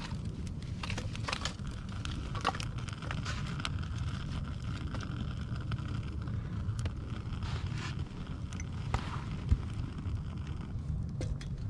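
Small campfire of dry sticks crackling, with irregular sharp pops and snaps, over a steady low rumble. Sticks are laid onto it and knock together near the start.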